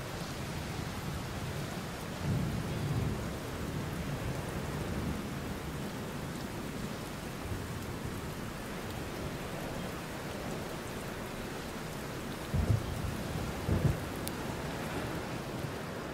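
Steady rain falling. A few short low thumps stand out above it, one about two seconds in and two close together near the end.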